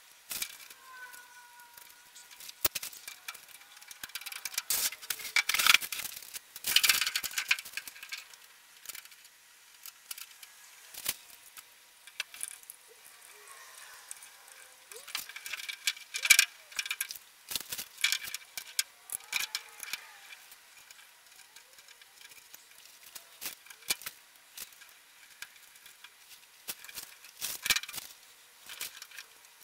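Quick clusters of clicks, clinks and rattles of nuts, bolts, washers and a wrench against the sheet-metal panels of a blast cabinet being bolted together, sped up.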